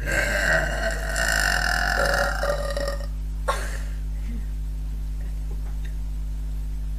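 A woman's long, drawn-out burp lasting about three seconds, with a short second sound about half a second after it ends.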